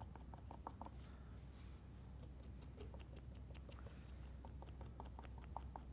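Felt-tip marker dabbing short strokes onto a hardened plaster-bandage puppet head: faint, quick ticks in irregular runs, over a steady low hum.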